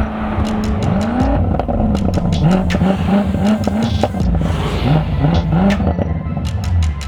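BMW F90 M5's twin-turbo V8 revving: the engine note climbs once, then goes up and down in a quick series of rev blips, with a second short run of blips a few seconds later.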